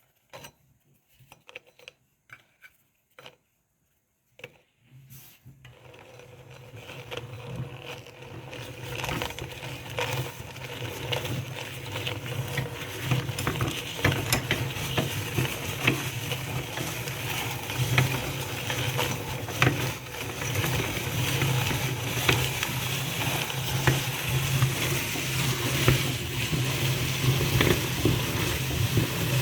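A few scattered clicks, then about five seconds in a meat grinder's motor starts a steady low hum and builds up. Dense crackling and crunching of Golden Oreo cookies being ground runs over the hum.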